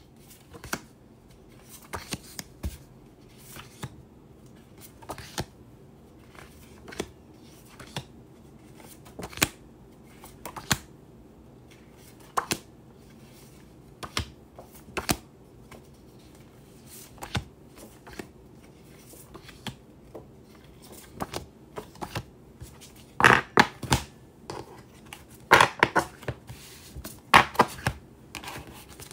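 Sheets of paper (printed colouring pages) being handled and laid down on a desk: scattered short rustles, slides and light taps, with louder paper handling in quick succession near the end.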